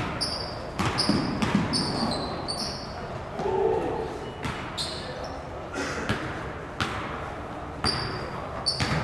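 Basketball dribbled on a hardwood gym floor: a series of sharp bounces at uneven spacing, echoing in the hall, with voices.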